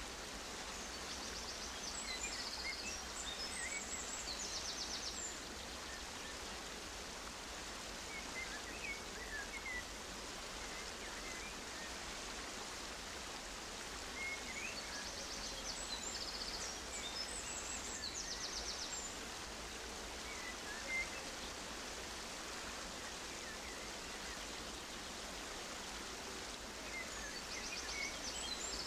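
Steady outdoor nature ambience, an even rushing hiss, with scattered bird chirps and short trills. The same chirps and trills come back about every fourteen seconds, like a looped ambience track.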